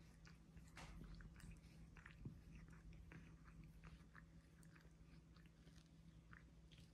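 Faint, irregular wet clicks and rasps of a cat's tongue licking another cat's fur during mutual grooming, over a faint steady low hum.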